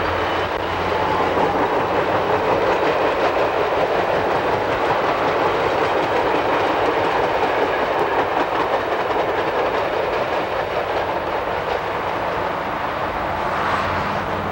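A passenger train rolling past at speed: a steady rush of steel wheels on rail with rapid clatter over the rail joints, swelling about a second in and easing toward the end.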